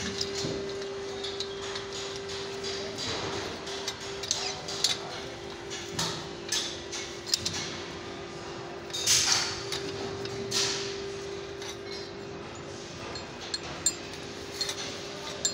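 A steel spanner knocking, clinking and scraping on steel scaffold couplers clamped on a steel tube: irregular metal taps, with louder scraping rasps about nine and ten seconds in. A faint steady hum runs underneath.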